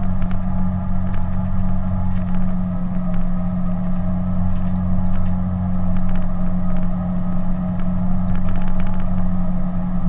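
Caterpillar D10T bulldozer's C27 V12 diesel engine running steadily as the dozer travels, heard from inside the cab, with scattered faint clicks over the deep drone.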